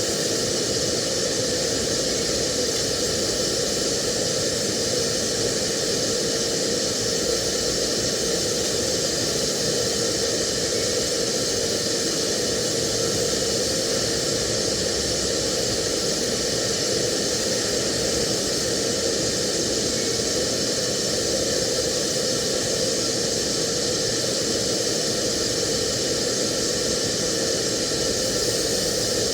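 TIG welding arc hissing steadily and unbroken, with a faint steady hum underneath.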